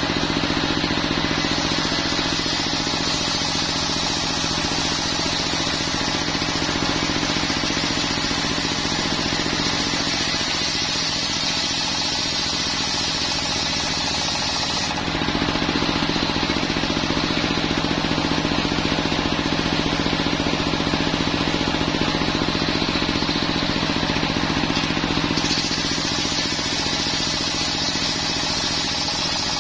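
Homemade circular sawmill running steadily on its belt-driven stationary engine, the blade cutting through a coconut-wood beam with a high hiss. The hiss drops out about halfway, leaving the engine and free-spinning blade, and comes back near the end as the next cut begins.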